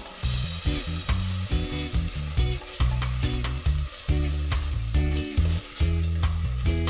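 Food sizzling as it sautés in oil in a frying pan, over background music with a bass line and a steady beat.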